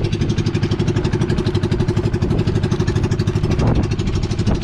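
Outrigger banca boat's engine running steadily, with a fast even beat and a steady hum.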